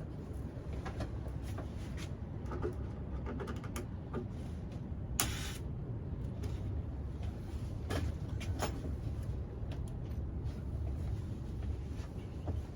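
Handling clicks and knocks on a bed gas strut being worked with an Allen key, with one short hiss about five seconds in as a little nitrogen is let out of the over-pressurised strut.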